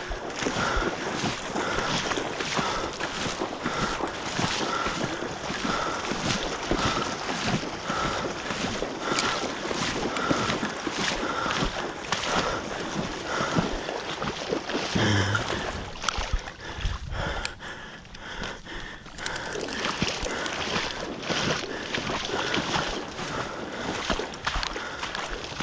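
Splashing and sloshing through shallow floodwater, with wind buffeting the microphone. A short high beep repeats about once a second for the first twelve seconds.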